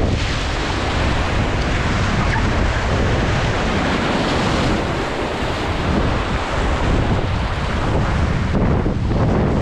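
Whitewater of a river rapid rushing in a steady, loud wash of noise, with wind buffeting the microphone.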